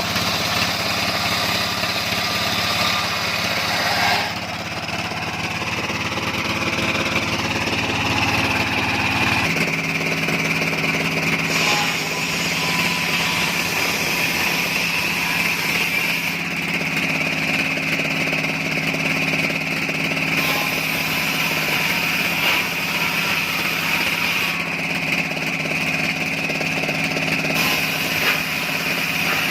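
Engine-driven sawmill machinery running steadily, an engine drone under a steady high whine, the sound changing abruptly every few seconds.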